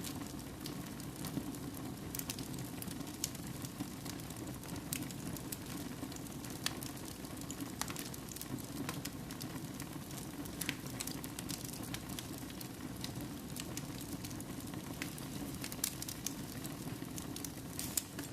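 Wood fire burning in a fireplace: a steady low rush of flames with irregular sharp crackles and pops of firewood, several a second, a few louder pops among them.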